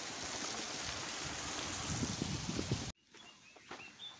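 Small waterfall of water spilling over a gabion wall: a steady rush of falling water that cuts off abruptly about three seconds in. Quiet outdoor air with a few faint chirps follows.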